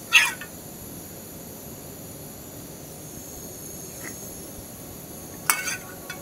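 An MSR WhisperLite camp stove burner hissing steadily, with a metal slotted ladle clinking against a small pot right at the start and again about five and a half seconds in.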